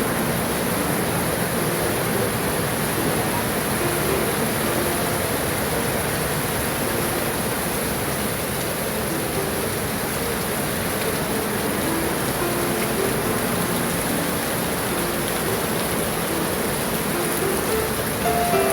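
Heavy typhoon rain pouring steadily, an even hiss with no breaks, with faint music underneath.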